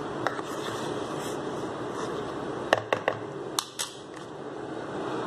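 Handling noise from a plastic food container and the phone camera: a few sharp clicks and taps about three seconds in, over a steady hiss.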